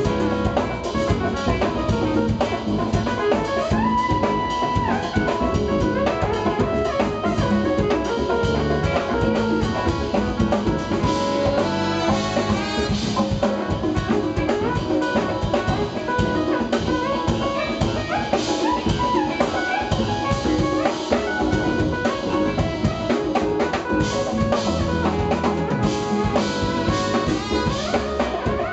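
Live jazz-fusion band playing: drum kit, electric bass and keyboards, with saxophone and trumpet.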